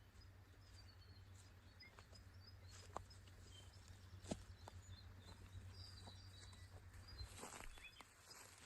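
Faint forest ambience: small birds chirping now and then over a low steady hum, with a few soft clicks, the sharpest about three and four seconds in.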